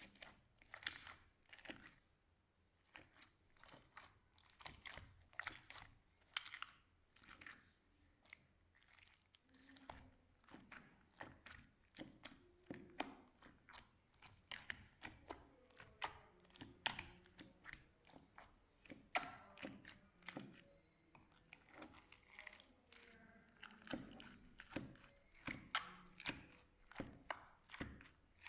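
Faint sticky crackling and popping as slime is squeezed and poked by hand, a quick irregular run of small clicks, several a second, without pause.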